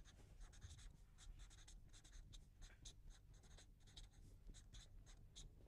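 Faint sounds of writing by hand: many short, quick strokes.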